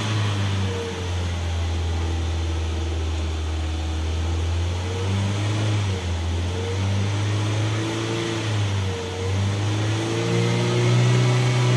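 Ford Figo's engine revved in neutral while stationary, its pitch rising and falling several times as the accelerator is pressed and eased off.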